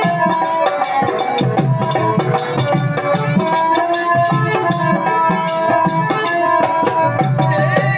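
Instrumental devotional music: held melody notes over a fast, steady percussion beat with a shaker-like rattle.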